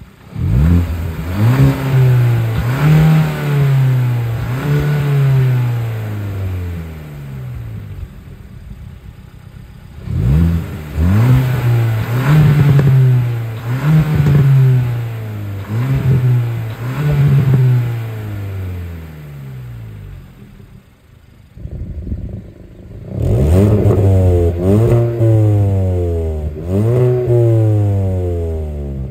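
Hyundai i20 N's 1.6-litre turbocharged four-cylinder engine being revved repeatedly at a standstill, each rev rising and falling back. There are three sets of four or five revs, with a few seconds of idle between sets; the last set sounds brighter.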